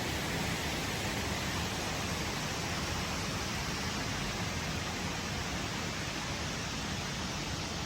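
Steady rush of water from a small waterfall, an even noise without distinct events.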